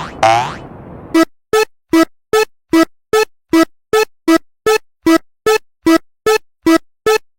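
A cartoon 'boing' sweep sounds once near the start. About a second in, an electronic crossing-bell chime begins, striking in short, even strokes about two and a half times a second, and it stops just before the end.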